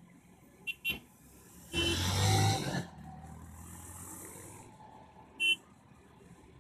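Vehicle horn beeps on a hill road: two short pips about a second in and one more near the end, with a louder, rougher burst lasting about a second in between, over faint road noise.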